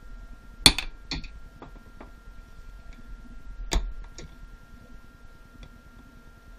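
Two sharp metallic strikes of a hammer on a hand impact driver, about three seconds apart, each followed by a lighter click or two, as the driver breaks loose the tight cover screws of a Mikuni watercraft carburetor.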